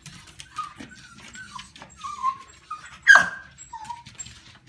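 Corgis whining in excited greeting, a string of short high falling whines, with one sharp yelp about three seconds in. Claws click on the hardwood floor throughout.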